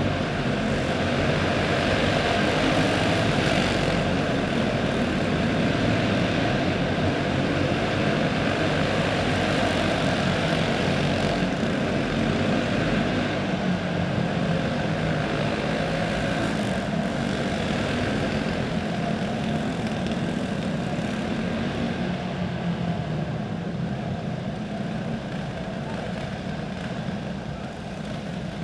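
Several quarter midget race cars' small single-cylinder four-stroke engines buzzing together as they lap the dirt oval, the sound filling the indoor arena hall. It eases off somewhat over the last several seconds.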